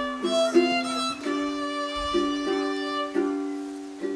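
Background music with a violin melody of held notes that change every half second or so.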